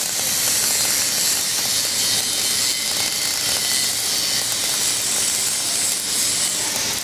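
Electric welding arc hissing steadily as a pass is run on the outside of a steel pipe joint, heating the root pass from behind until it glows red.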